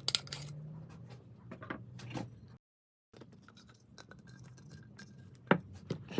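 Scraping and scratching as wood paste is pressed together in its tin with a putty knife, with scattered clicks from handling the tin. Two sharper clicks come near the end. The sound cuts out completely for half a second a little over two seconds in.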